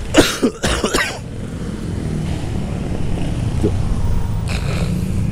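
A man coughs in a short, harsh fit of several coughs lasting about a second, the rider sick with the flu. After it the steady low rumble of the scooter's engine and surrounding traffic carries on, with a brief rush of noise near the end.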